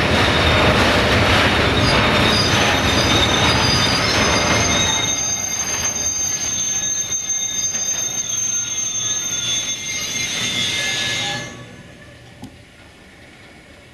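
Freight train of tank wagons rolling past, the wagons' wheels rumbling and clattering on the rails. From about five seconds in, a steady high-pitched metallic squeal rises from the running gear. The sound falls away abruptly about two seconds before the end.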